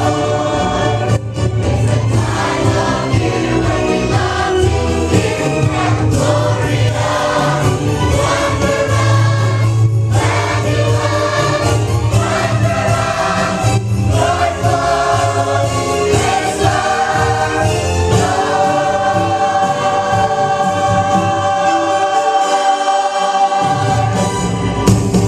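Choir singing a Christmas cantata with instrumental accompaniment. For the last several seconds it holds one long chord.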